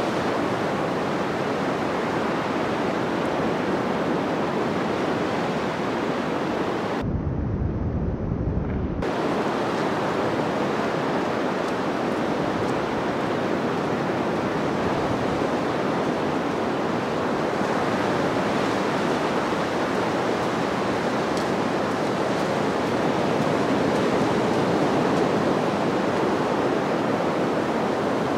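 North Sea surf breaking on the beach in a steady, continuous rush of waves. About seven seconds in, the sound turns muffled with a low rumble on the microphone for about two seconds.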